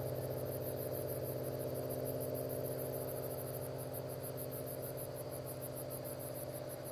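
Crickets chirping in a fast, even pulse over a steady low hum of several tones.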